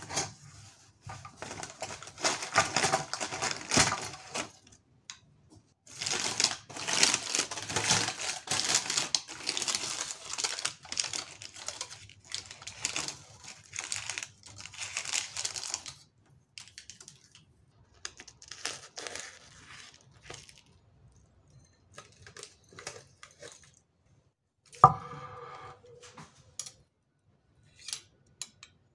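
Baking paper crinkling and rustling in long bursts as it is worked loose from around a baked monkey bread, then thinning to scattered rustles. Near the end, one sharp knock with a short ring.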